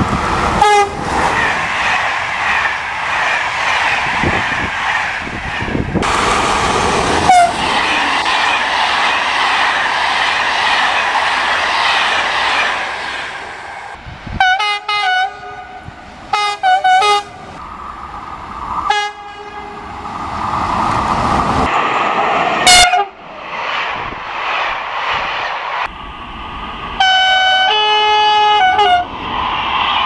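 Locomotive-hauled passenger trains running past, with a loud rumble and wheel noise. In the second half the locomotives sound several short horn blasts and, near the end, a two-tone horn call held for about two seconds.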